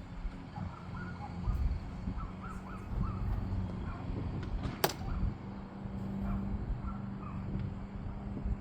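Crows cawing in the background, with a single sharp click about five seconds in over a steady low rumble.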